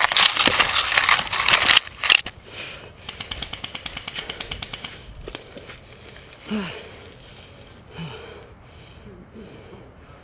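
Loud rustling noise close to the camera, then a rapid run of sharp clicks, about nine a second for a couple of seconds, typical of an airsoft electric rifle firing full-auto. Two short falling breaths or grunts follow.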